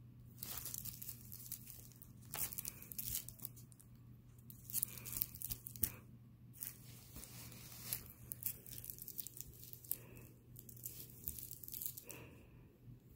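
Sheer fabric cat-toy sheet rustling and crinkling in irregular bursts as a cat paws and noses through it on carpet.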